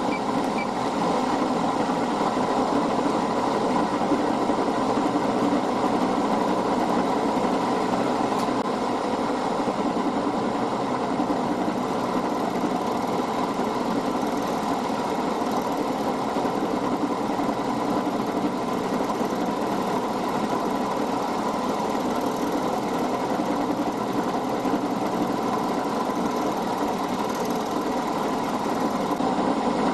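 Milling machine running steadily, its spindle turning a large end mill fed lightly across a small metal part.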